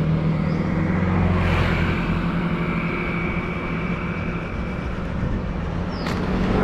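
Motorbike engine running as the bike rides slowly along; its hum eases after about two seconds.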